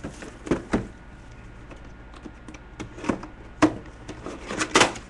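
A mini helmet box being handled and opened: a handful of short knocks and rustles, the loudest about three and a half seconds in and near the end.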